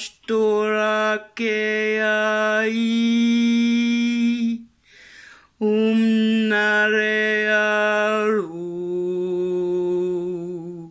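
A woman's voice toning long, held wordless notes, with short pauses for breath between phrases; near the end the pitch steps down to a lower sustained note.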